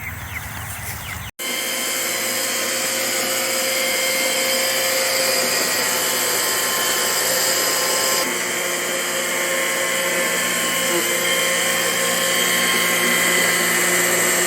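Electric kitchen appliance motor running steadily at a high whir while processing tomatoes for sauce, switching on abruptly about a second in.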